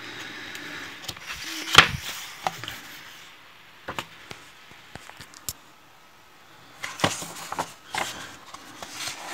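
Pages of a thick paperback book being turned by hand: soft paper rustling with a few sharp page flicks, the loudest about two seconds in.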